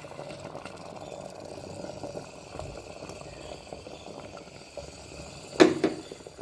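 Palm-jaggery syrup being poured from a bowl into a pressure cooker of hot mashed rice and lentils: a soft, steady liquid pouring and bubbling sound. About five and a half seconds in there is a single sharp, ringing clink.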